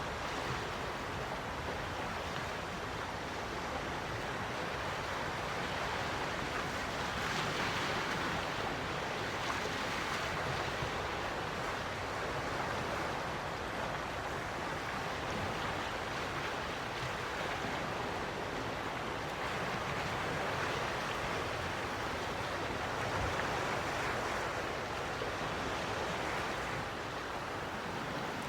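Quiet waves washing in steadily, with soft swells every few seconds.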